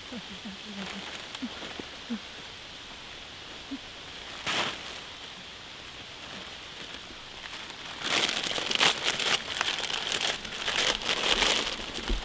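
Plastic crisp bag crinkling as it is handled and pulled open: a short crackle about four and a half seconds in, then loud, dense crinkling from about eight seconds on.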